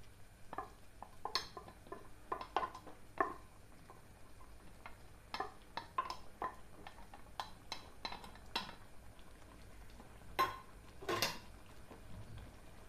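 A metal bowl knocking and clinking against a cooking pan as cooked rice is tipped and tapped out of it into the dal: a run of irregular sharp clinks, two of the loudest near the end.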